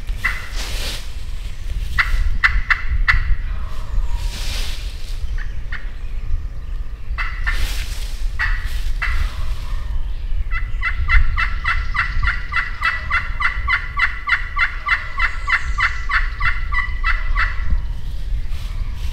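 A wild turkey gobbler gobbles several times in short rattling bursts. In the second half a Woodhaven Cherry Classic Crystal pot call runs a long, fast, even string of yelps, about four a second, calling the gobbler in.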